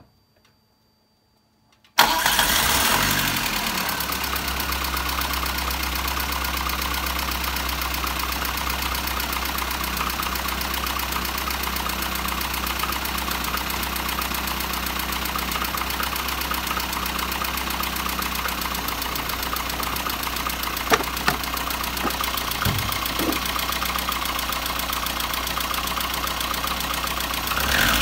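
VAZ-2115's four-cylinder petrol engine starting about two seconds in, then settling into a steady idle.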